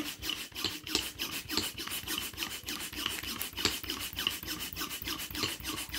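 Plastic hand pump sucking the air out of a vacuum storage bag full of clothes: quick, even scraping strokes of the plunger, several a second.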